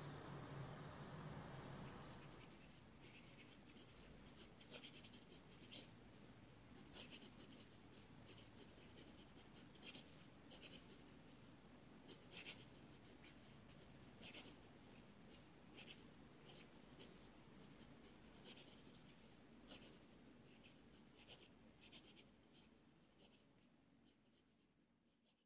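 Near silence: faint room tone with soft, scattered scratches and ticks, fading out near the end.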